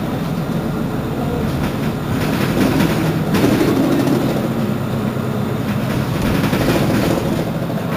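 Mercedes-Benz Citaro C2 city bus engine idling with a steady low hum while the bus stands at a stop, swelling slightly a few seconds in.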